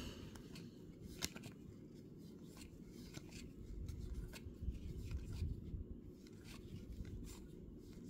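Stack of Topps baseball cards being flipped through by hand: faint, irregular slides and light clicks of card stock, the sharpest about a second in, over a steady low hum.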